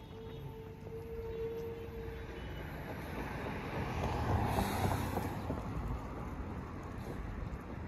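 A car passing close by on the road, its engine and tyre noise swelling to a peak about four to five seconds in and then easing. Before that, a steady high tone holds for the first two seconds.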